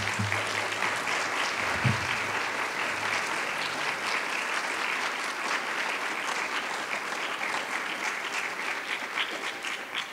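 Audience applauding: a steady patter of many hands clapping that thins out near the end.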